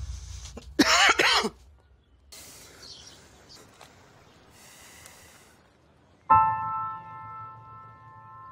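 A brief throaty vocal sound, tagged as a cough, about a second in, then near quiet. A sudden dramatic music chord with ringing sustained tones strikes near the end and fades.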